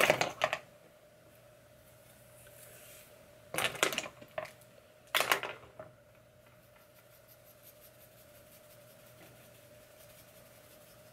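Scissors snipping through synthetic wig hair in three short bursts of quick cuts while layers are cut into the wig.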